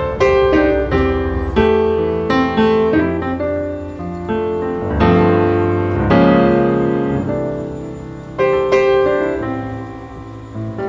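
Piano music: a melody of struck notes that ring and fade over low bass notes, with fuller chords struck about five and six seconds in.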